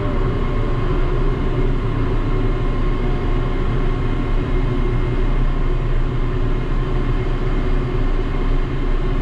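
2004-built ship's deck crane machinery running steadily, heard from inside its cab: a loud, even low hum with faint steady whining tones above it.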